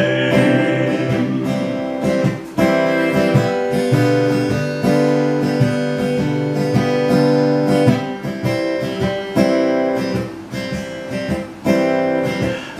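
Acoustic guitar strummed alone in an instrumental break between sung verses, slow chords ringing out with a few strong strums.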